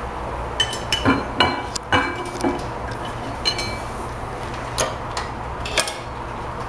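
Irregular sharp metallic clinks and taps from the metal body and fittings of a wood-burning fireplace stove, a dozen or so, several ringing briefly, over a steady low hum.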